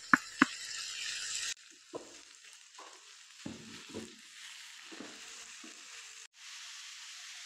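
Chicken mince frying with onion in hot oil in a pan: a steady sizzle, broken by a spoon stirring and scraping with a few sharp knocks against the pan.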